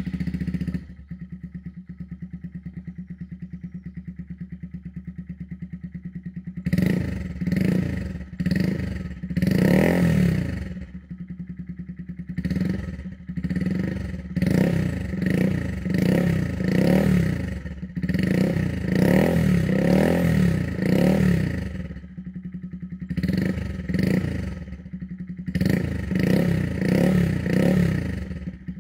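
Honda Monkey 125's single-cylinder four-stroke engine running through a full Akrapovic exhaust with its new header pipe. It idles steadily, then from about seven seconds in gets a long run of short throttle blips, each revving up and dropping back, with a brief return to idle about two thirds of the way through.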